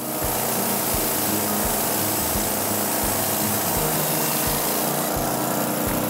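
Engine-driven portable band sawmill running, its blade cutting through a log with a loud, steady noise that cuts in abruptly at the start. Background music with a steady beat plays underneath.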